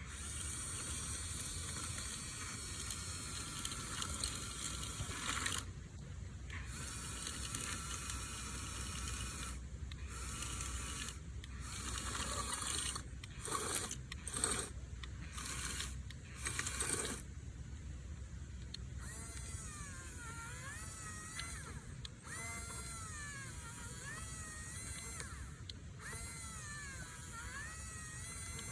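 Remote-controlled model excavator's electric motors whining in short runs that start and stop repeatedly, then, in the last ten seconds or so, a whine that keeps rising and falling in pitch as the motors speed up and slow down.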